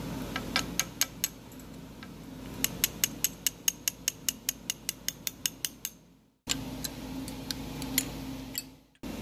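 Light metallic clicks from a hand pick working against a copper strip in the slot of a steel lathe fixture: a few at first, then an even run of about five a second for some three seconds, then a few scattered ones. A steady machine-shop hum runs underneath, and the sound drops out briefly twice.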